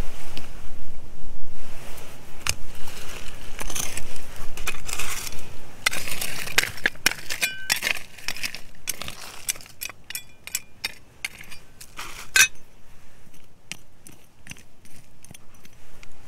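Small stones and grit scraping and rattling, then a run of sharp clicks and clinks of stone and a small metal digging tool, one ringing briefly about seven and a half seconds in; the sounds grow quieter and sparser in the second half.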